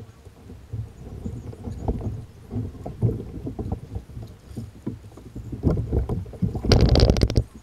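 Feelfree Lure 10 plastic fishing kayak knocking and bumping as someone climbs out of it into shallow water, ending with a louder clattering scrape of the hull for about a second near the end.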